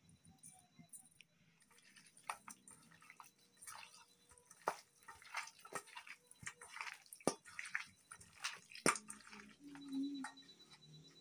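Hands kneading raw chicken pieces with salt and spices in a stainless steel bowl: a run of short wet squelches and clicks. A low steady tone comes in near the end.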